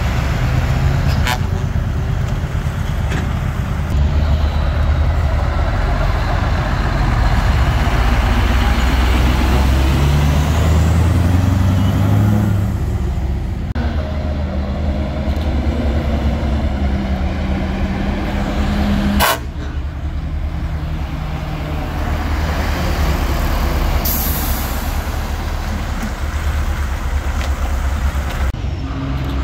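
Diesel engines of articulated lorries pulling away and driving past, one engine note rising as it accelerates, with a short air-brake hiss about two-thirds of the way in.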